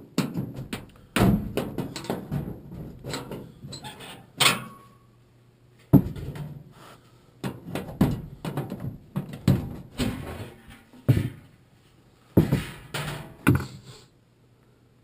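Irregular knocks, clicks and rattles of hard objects being handled, in several bursts that stop about a second before the end, over a faint steady hum.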